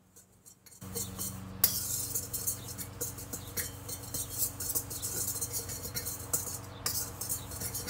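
Wire whisk scraping and clinking quickly against a stainless steel mixing bowl, stirring dry ingredients; it starts about a second in.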